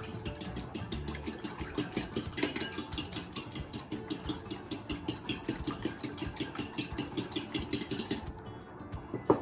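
Metal spoon beating egg and milk in a ceramic bowl: rapid, even clinks and scrapes against the bowl that stop shortly before the end, then one sharper clink.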